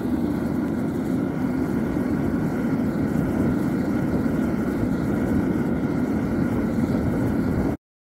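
Metal-melting furnace firing hard, a steady, loud rushing noise of burner flame and forced air that cuts off abruptly near the end.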